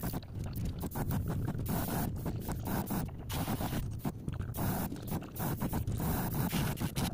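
Airbrush hissing in short, repeated bursts as its trigger is pressed and released, over a steady low hum.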